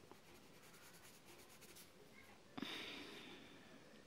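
Prismacolor coloured pencil shading on paper: faint scratching, with one louder stroke about two and a half seconds in that fades over about a second.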